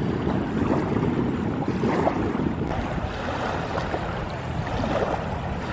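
Wind buffeting the microphone, a steady low rumble, with small lake waves lapping and splashing at the shore.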